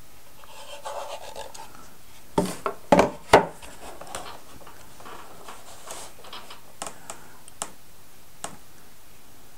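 Hands rubbing and scratching against a thin plywood model boat cabin as its parts are pressed onto the frames, with three or four sharp knocks about two and a half to three and a half seconds in, then a few light clicks.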